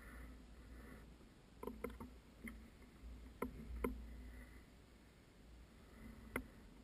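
Quiet outdoor ambience: a steady low rumble with about six faint, sharp clicks scattered through it, the loudest a little after six seconds.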